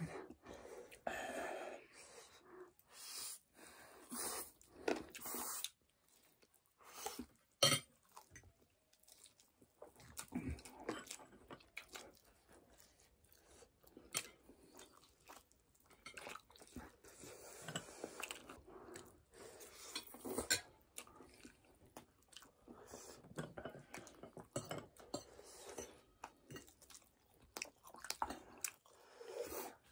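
Close-up eating sounds: two people chewing and biting into spicy chicken wings, sausages and noodles, with scattered sharp clicks of forks on plates.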